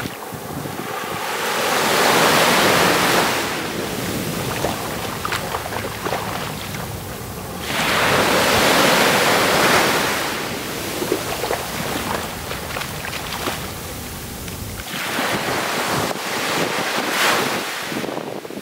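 Small waves washing up onto a sandy beach, with two louder swells of surf about six seconds apart and weaker wash between. Wind rumbles on the microphone until shortly before the end.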